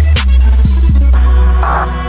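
Background music: a beat with heavy bass and drums. The fast high cymbal ticks stop about a second in, leaving the bass and held synth tones.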